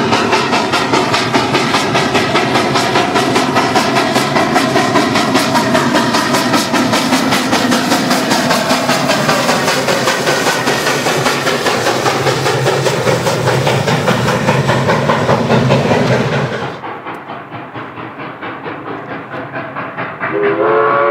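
Steam locomotive chuffing loudly and rapidly, the exhaust beats coming in quick succession. About seventeen seconds in, the sound drops to quieter, more distant chuffing. Just before the end a steam whistle starts to blow a steady chord.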